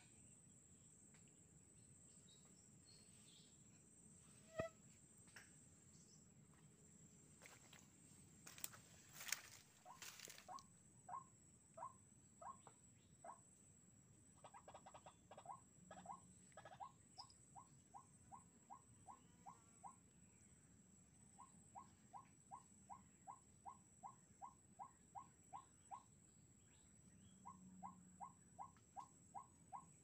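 White-breasted waterhen (ruak-ruak) calls: runs of short, rising notes about two to three a second, repeated in bursts of several seconds, played as a lure call through a Bluetooth speaker. A brief rustle comes about nine seconds in.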